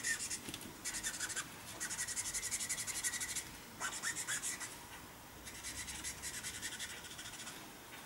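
A Copic alcohol marker's brush nib scratching and rubbing over paper in quick back-and-forth blending strokes. It comes in several short bouts of about a second or two, with brief pauses between them. The brush tip is worn.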